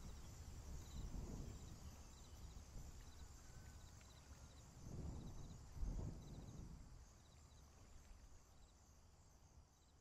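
Faint outdoor wetland ambience: short high chirps repeat about once a second over a steady high hiss, with low rumbling that swells twice around the middle before the sound fades out.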